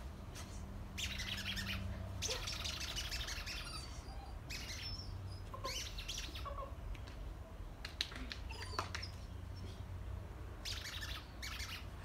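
Birds chirping and chattering in several short bursts, over a low steady hum.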